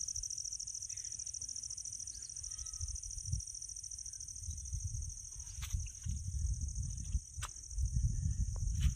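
Steady high-pitched insect chorus, a fast even trill that holds throughout. Gusts of wind buffet the microphone as low rumbles that grow stronger from about halfway, with a few small handling clicks near the end.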